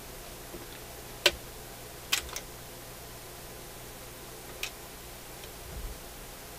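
Sharp mechanical clicks from a Dual 1228 turntable's tone arm as it is moved by hand over the platter: one loud click about a second in, two more about two seconds in, and a lighter one near five seconds. A low steady hum runs underneath. The arm will not swing on its own, and its mechanism is stuck.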